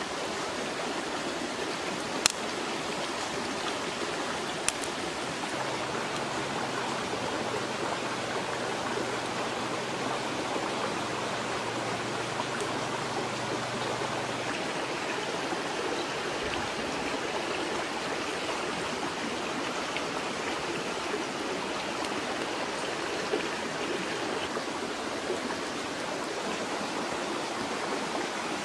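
Steady rushing of a stream's flowing water, with two sharp clicks within the first five seconds.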